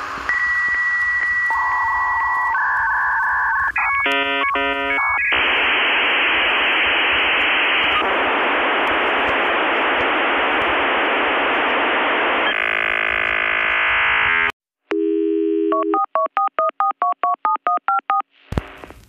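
Electronic telephone-line tones like a dial-up modem connecting. Steady dial tones come first, then a quick run of touch-tone dialing about four seconds in. A long hiss follows, then a short silence, then rapid alternating beeps, about four a second, near the end.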